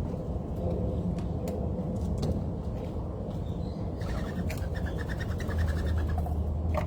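Outdoor background with a steady low rumble and scattered small clicks. About four seconds in, a bird gives a rapid trill of evenly repeated notes lasting under two seconds.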